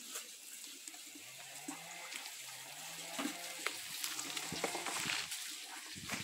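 Scattered rustles and crackles, as of footsteps and handling on dry leaves and litter, with three short low rising tones in the background during the first half and a louder clatter near the end.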